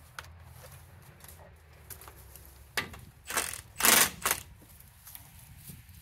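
Cordless impact wrench with a half-inch socket hammering in several short bursts, the longest and loudest about four seconds in, as it backs out bolts holding an access panel.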